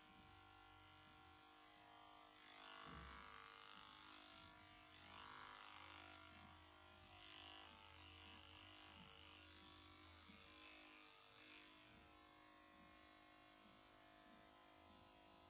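Faint steady buzz of handheld electric horse clippers running while clipping the hair on a horse's face.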